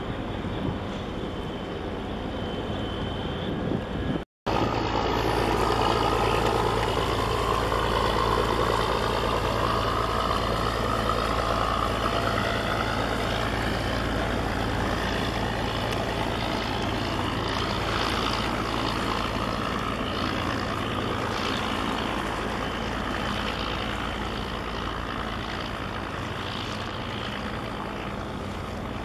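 Steady low engine drone under a constant rush of mixed noise, cut by a brief dropout about four seconds in.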